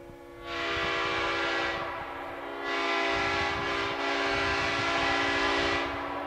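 Multi-chime locomotive air horn sounding a steady chord on compressed air. It starts soft, opens up loud about half a second in, drops back briefly around two seconds, then sounds loud again for about three seconds before easing off near the end.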